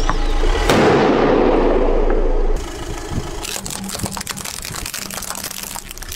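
An inflatable plastic toy hammer bursts under a car tyre with a sharp bang about a second in, over a low engine hum, then a rush of noise that dies away. After a sudden cut, a car tyre rolls over a row of plastic M&M-figure toys with a run of cracks and crackles.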